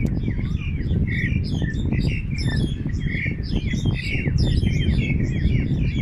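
Several small birds chirping and twittering, many quick notes sliding up and down, over a steady low rumble.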